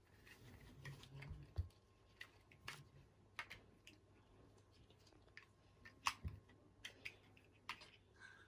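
Faint, scattered clicks and taps of large plastic toy building blocks being handled, knocked together and pressed onto one another, a few irregular clicks a second at most.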